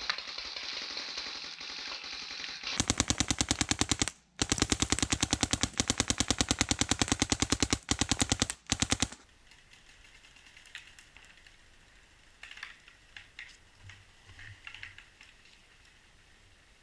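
Paintball marker firing long, rapid strings of shots, broken by a brief pause a little after the first string and stopping about halfway through. Afterwards only a few faint clicks.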